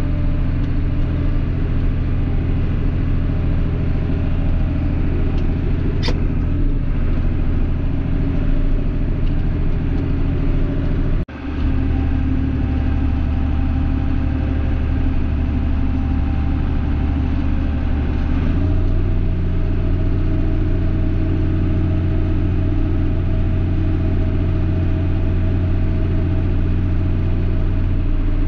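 Tractor engine running steadily, heard from inside the cab as it creeps along at field speed. The drone cuts out for an instant about eleven seconds in, and its note shifts and settles again about two-thirds of the way through.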